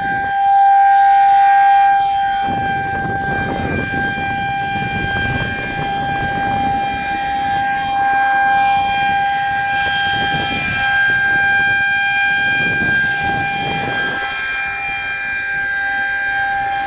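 Federal Signal 2001-130 outdoor warning siren sounding one steady tone, activated for a severe thunderstorm. It is loudest about a second in.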